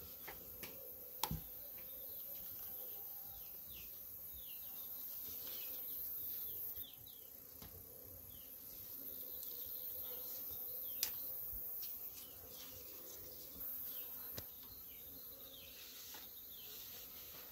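Summer garden ambience: a steady high-pitched insect drone that breaks off and resumes, with many short falling bird chirps. Two sharp clicks of handling on the table, about a second in and about eleven seconds in.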